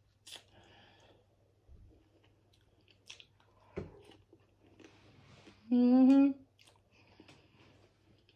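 A woman chewing birria ramen noodles, with quiet wet mouth clicks, then a short, loud closed-mouth "mmm" hum about six seconds in.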